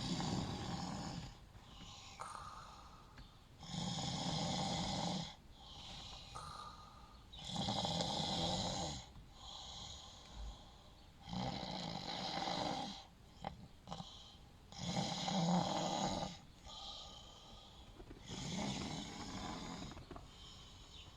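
A sleeping man snoring: six loud snores at a steady pace, one about every three and a half to four seconds, each lasting about a second and a half, with softer breathing between them.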